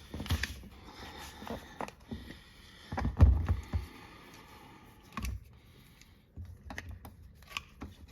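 Scattered clicks and knocks of a Demco Aluminator tow bar's lock collar and rubber boot being handled and pulled back, with a louder thump about three seconds in and a smaller one about five seconds in, echoing in a concrete garage.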